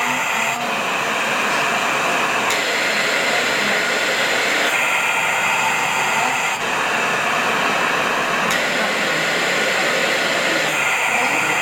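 CoughAssist mechanical insufflator-exsufflator running its automatic therapy cycle: a loud, steady blower hiss that changes tone about every two seconds as the machine switches between inspiration, expiration and pause. The pattern repeats roughly every six seconds, with a sharp click at two of the switchovers.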